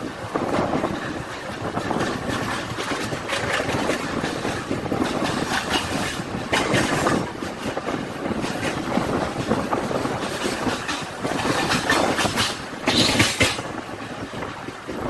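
Mumbai local electric train running, a steady rumble of wheels on rails with frequent short clicks, growing louder and brighter briefly about six and a half and thirteen seconds in.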